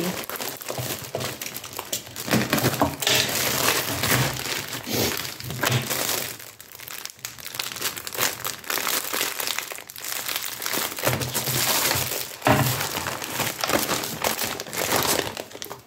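Plastic parcel packaging crinkling and crackling as it is handled and opened, in irregular bursts of rustling.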